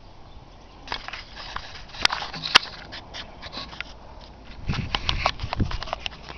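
Crunching and rustling of dry grass and dirt underfoot, with clicks of a handheld camera being handled; two sharp clicks about two seconds in, and heavier low thuds of steps around five seconds in.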